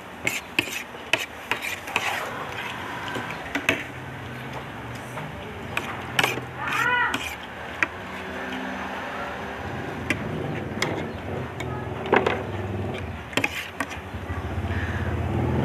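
Metal utensils clinking and scraping against a plate while eating, in many short sharp clicks. A low hum builds in the background toward the end.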